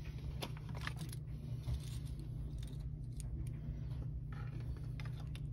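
Light clicks and small rattles from tools and parts being handled on a workbench, over a steady low hum.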